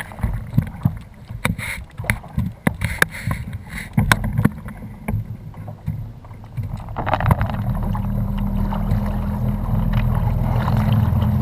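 Small waves slapping and knocking irregularly against a plastic fishing kayak's hull. About seven seconds in, a steady low wind rumble on the microphone takes over.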